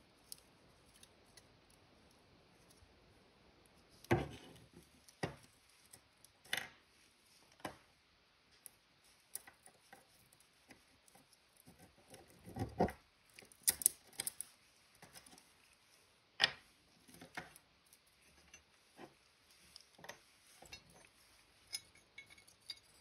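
Irregular knocks and clicks as the pieces of an old drawknife are handled on a wooden tabletop: the rusty iron blade and tang, wooden handle sleeves, and small metal ferrules and rings tapping together and being set down.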